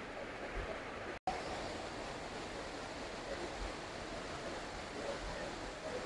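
Steady rushing noise of a waterfall. It cuts out for an instant about a second in, then carries on unchanged.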